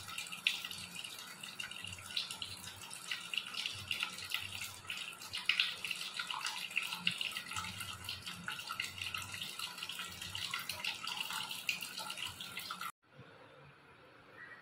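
Water running and splashing with a crackle of small drips, as a freshly caught crab is put in water to soak and purge its mud. The sound cuts off suddenly about thirteen seconds in.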